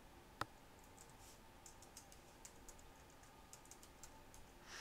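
Faint keystrokes on a computer keyboard as a password is typed, a string of light taps with one sharper click about half a second in.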